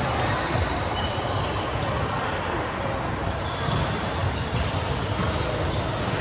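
Sports hall ambience during an indoor ball game: a ball bouncing and being struck, echoing in a large room, over a steady background of voices and court noise.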